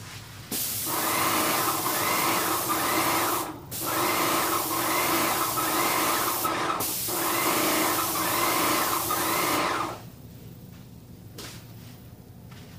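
Paint spray gun spraying the final coat: a loud, steady hiss with a tone in it. It starts about half a second in, stops briefly twice where the trigger is let go, and cuts off about ten seconds in.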